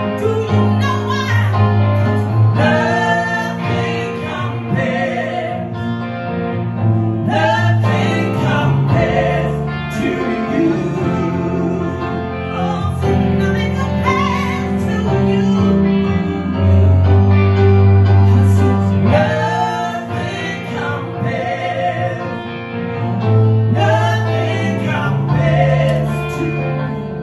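Live duet of a female and a male soul singer, voices trading and overlapping over sustained stage-keyboard chords.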